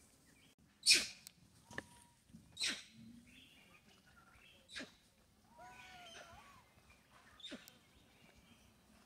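Short, sharp animal calls, five of them spread over several seconds, the first about a second in the loudest, with fainter chirping in between.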